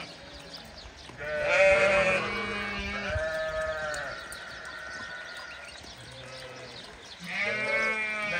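Sheep bleating: one call about a second in, another around three seconds in with a higher held note after it, and a third starting near the end.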